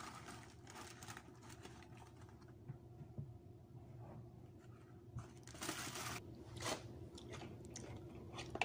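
Paper food wrapper crinkling and crunchy bites of fried chicken, a few short noisy rustles, the loudest a bit over five seconds in.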